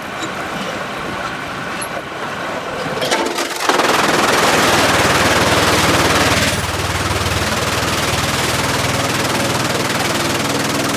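Sawmill machinery running. A loud, harsh noise starts suddenly a little under four seconds in and eases after about three seconds, while a steady low motor hum carries on.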